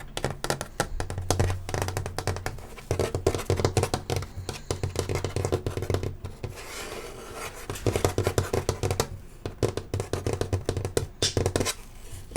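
Chalk scratching and tapping on a chalkboard in quick strokes, coming in bursts with short pauses between them.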